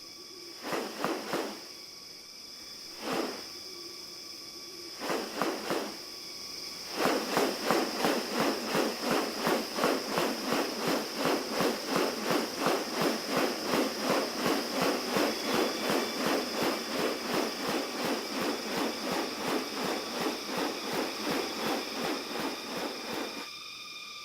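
New Guinea rainforest ambience: a steady high insect drone, with a few separate pulses of sound and then, from about seven seconds in, a fast, even series of pulses, about three a second, that stops shortly before the end.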